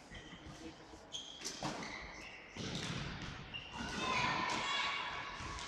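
Floorball play in an echoing sports hall: sharp knocks of sticks and the plastic ball and running feet on the hall floor, getting busier and louder about halfway through.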